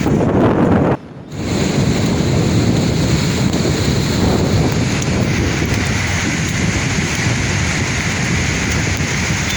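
Sea waves washing and breaking on the shore, a continuous surf rush with wind buffeting the microphone. The sound drops out suddenly for a fraction of a second about a second in.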